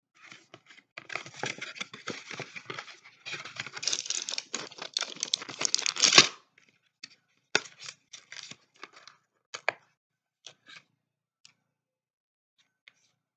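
Medicine packaging being torn and crinkled in dense crackling bursts for about six seconds, stopping sharply, followed by a few scattered clicks and rustles.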